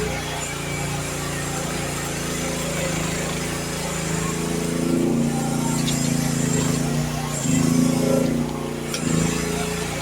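Youtop YT15 mini excavator engine running steadily, its note swelling louder twice in the second half as the hydraulics take load.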